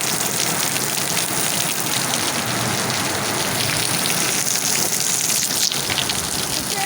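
Heavy rain falling steadily during a thunderstorm, a dense patter of drops on a surface, with one short sharp tick about two-thirds through.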